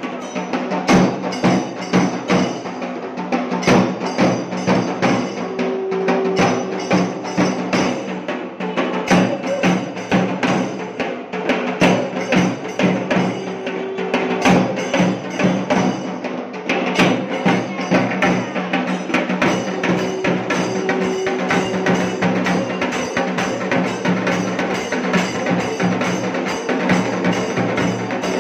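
Live temple drumming: hand-held stick drums playing a fast, continuous rhythm of sharp strokes over a steady low drone, with a higher held tone sounding briefly now and then.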